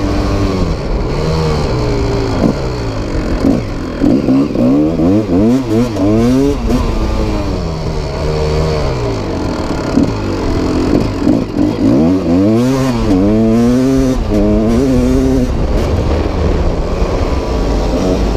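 Dirt bike engine running under load, its pitch rising and falling again and again as the throttle is opened and closed.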